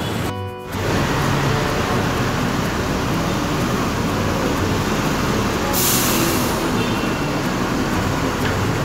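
Street traffic at a bus stop as an electric city bus pulls in alongside. About six seconds in comes a short burst of hiss, typical of air released from the bus's air brakes.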